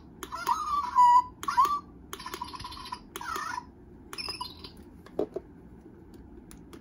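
Zhu Zhu Pets toy hamster in talk mode, set off by pressing its nose: its small speaker plays electronic hamster squeaks and chirps in several short bursts over the first three and a half seconds. One more brief chirp follows just past four seconds, and a couple of light clicks come around five seconds.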